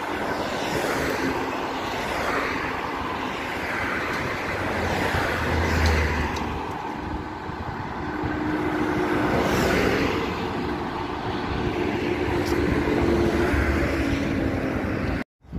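Road traffic going by on a busy multi-lane road: a steady rush of tyre and engine noise that swells as vehicles pass, loudest about six and ten seconds in, then cuts off abruptly near the end.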